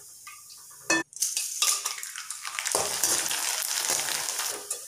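Corn flakes frying in hot oil in a metal kadai: a sharp clank of the metal ladle against the pan about a second in, then a steady high sizzle with small crackles as the ladle stirs them, easing off near the end.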